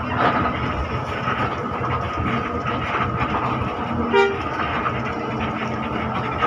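Steady engine and road noise inside a moving coach bus cabin, with one short horn toot about four seconds in.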